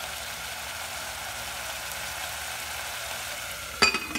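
Steady sizzling hiss of a spiced tomato-and-potato curry cooking in a pot, then near the end a sharp ringing clink as a glass lid is set on the pot.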